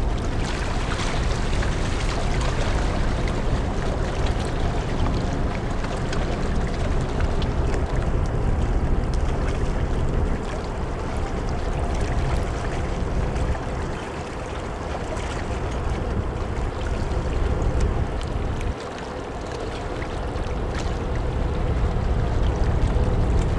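Gusting wind buffeting the microphone, easing abruptly a few times, over the faint steady hum of the Hankyu Ferry New Nagato's engines as the car ferry leaves port.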